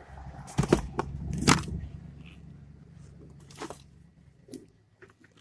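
An ironing board being picked up and handled: several sharp clanks and rattles, the loudest about half a second and a second and a half in, another near four seconds in.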